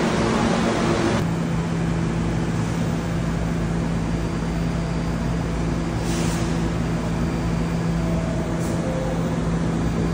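Subway train running noise, which switches abruptly after about a second to the steadier low hum and rumble of a subway station with a train nearby. A constant low tone runs under it, with two brief high hisses about six and nine seconds in.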